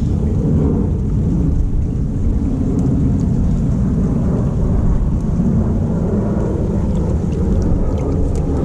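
Steady low rumble of wind buffeting the microphone, with a few faint small splashes as a chub is released by hand into the stream.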